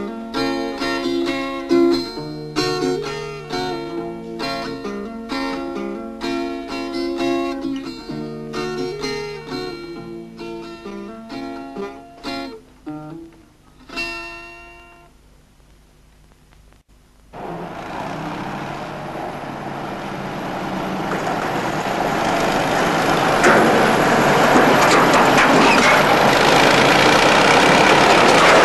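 Acoustic guitar music that fades out about halfway through. After a brief hush, the dense, steady noise of heavy machinery starts and builds to a loud level toward the end.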